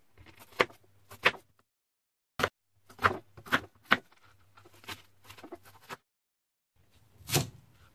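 Chef's knife dicing half an onion, chopping down through it and knocking on a plastic cutting board: about nine sharp, irregular chops. The sound drops to dead silence twice, briefly.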